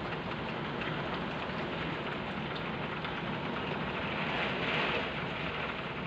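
Heavy storm rain and wind lashing against a window pane: a steady rushing noise that swells a little about four to five seconds in.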